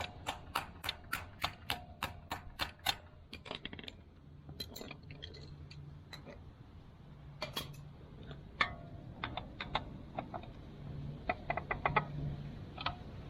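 Sharp clicks of hand tools being worked on a motorcycle. They come in a quick run of about five a second at first, then scatter, with another burst near the end, over a faint low hum.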